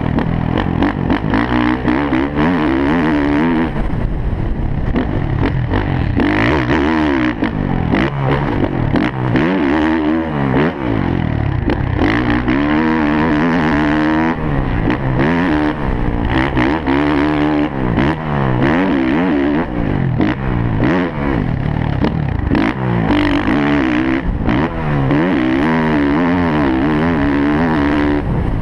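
Motocross dirt bike engine revving up and falling off again and again as the rider accelerates, shifts and rolls off around the track, heard from a helmet-mounted camera.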